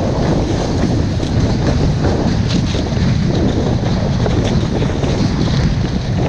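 Strong wind buffeting the microphone of a kitesurfer's point-of-view camera, a steady loud rush, mixed with the hiss and splash of spray as the kiteboard skims over choppy sea.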